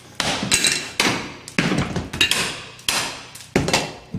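Hammer blows knocking ceramic wall tile loose from the wall, about eight sharp hard strikes at uneven intervals, each ringing briefly.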